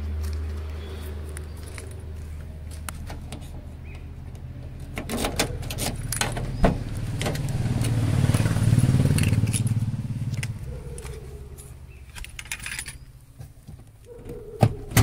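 Scattered clicks and jingles of handling in and around a small car, over a low steady hum that swells about eight seconds in and dies away by about eleven seconds.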